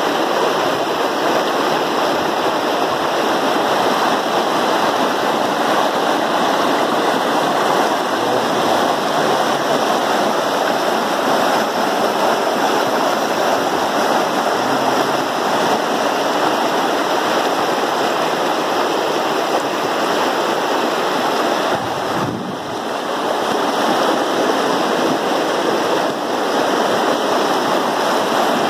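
River water rushing, a loud steady noise that dips briefly about three-quarters of the way in.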